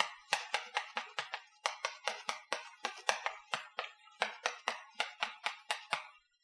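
Chalk writing on a blackboard: a quick run of sharp taps and short scrapes, several a second, as Japanese characters are written stroke by stroke, with a brief pause about four seconds in.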